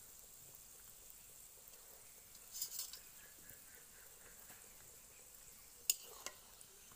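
Poori frying in hot oil in a metal karahi: a faint, steady sizzle, with a brief louder burst of crackling about two and a half seconds in. Near the end a metal spatula strikes the pan twice with sharp clinks, the first the loudest sound.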